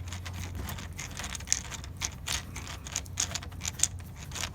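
Irregular small clicks and light rattles of hand tools and parts being handled while working inside a car door panel, over a steady low hum.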